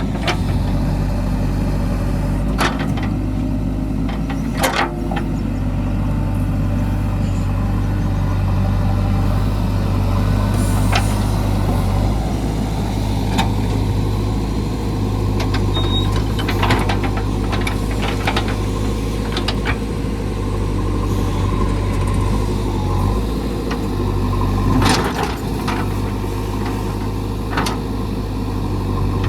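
JCB 3DX backhoe loader's diesel engine running steadily under work, with scattered sharp knocks and cracks over it.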